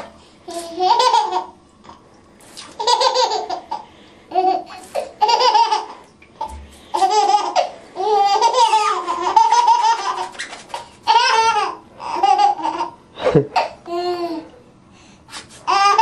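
A baby laughing and squealing in short high-pitched bursts, over and over with brief pauses between.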